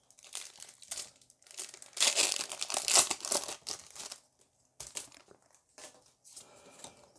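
Foil Pokémon booster pack wrapper crinkling and tearing as it is opened, loudest about two to four seconds in, then a few soft rustles as the cards are slid out.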